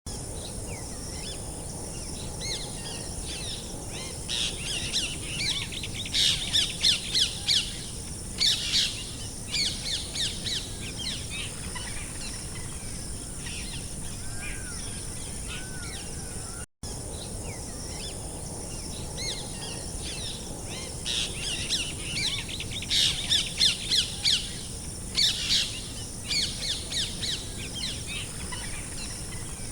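Songbirds chirping over a steady outdoor hiss, in clusters of quick, high chirps. About halfway through there is a brief dropout, after which the same stretch of birdsong repeats as a loop.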